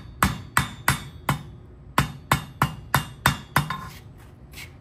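Hand hammer striking a small red-hot steel rod on an anvil: a run of about five sharp blows, a short pause, then another six or so, about three a second, the last few lighter.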